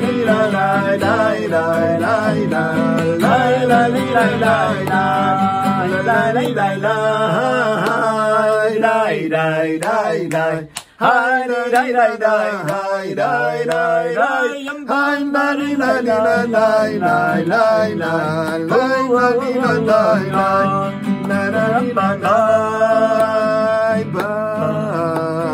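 Two men singing a song together to an acoustic guitar. The sound briefly cuts out about eleven seconds in.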